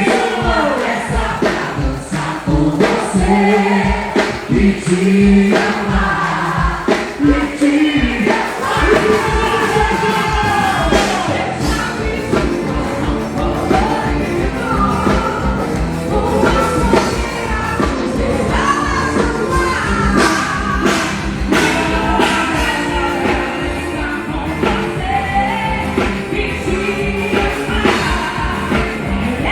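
Live music: singing, with many voices together, over a band with a steady beat.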